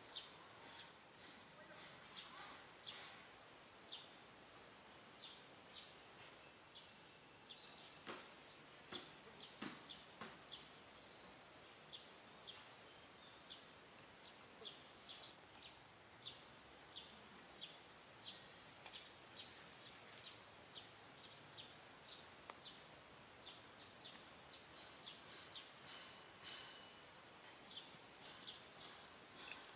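Faint outdoor ambience: a steady high insect drone with many short, high bird chirps scattered throughout, and a few soft taps about a third of the way in.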